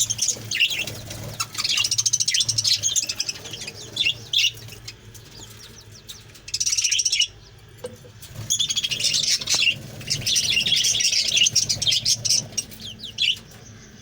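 A colony of Australian parrots chattering with dense, rapid chirps and warbles in bursts, with brief lulls, over a steady low hum.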